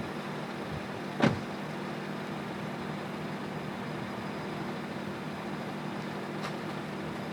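Steady hum of a vehicle with its engine running, heard from inside. A sharp click about a second in and a fainter one near the end.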